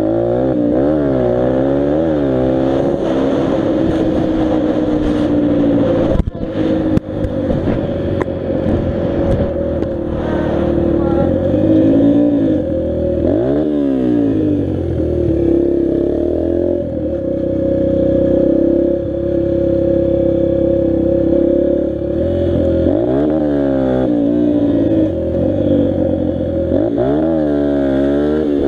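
Dirt bike engine running while being ridden, its revs repeatedly dropping and climbing again. There is a brief dip with a few knocks about six to seven seconds in.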